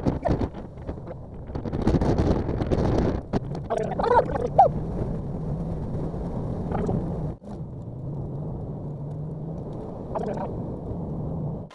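Noise inside a moving vehicle: a steady engine and road drone, with louder rushes of noise about two to three seconds in and a few short wavering tones around four seconds in.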